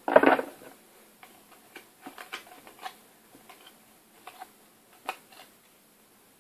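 Match Attax football trading cards being flicked through one at a time in the hand, a string of light, irregular card clicks. A louder rustle of handling comes right at the start.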